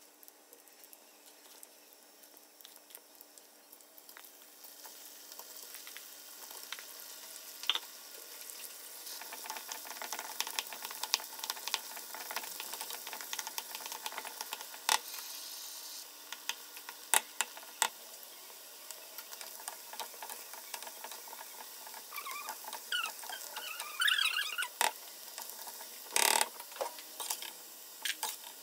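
Cornstarch-coated chicken strips frying in hot oil in a wok: a steady sizzle full of crackling pops that builds over the first ten seconds. A wooden spoon stirs and scrapes through the pieces, and there is a loud knock near the end.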